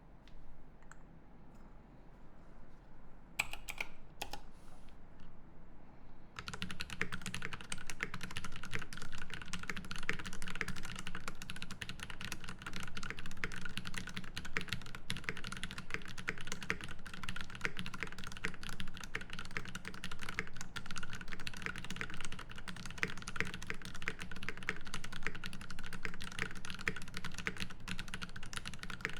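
Typing on a Space65 CV mechanical keyboard with lubed Drop Holy Panda tactile switches, a carbon-fiber plate and GMK keycaps. A few separate keystrokes come first, then from about six seconds in a fast, steady run of key clacks.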